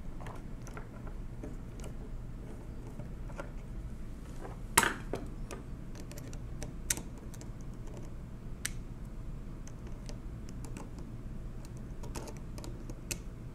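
Irregular small metallic clicks and taps of a screwdriver and needle-nose pliers working a tight screw in the steel mechanism of a 1920s Monroe Model K mechanical calculator, with one louder clack about five seconds in.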